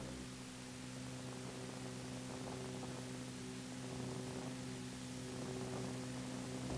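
Faint steady electrical hum with a layer of hiss: the background noise of an old soundtrack transfer, with no other sound.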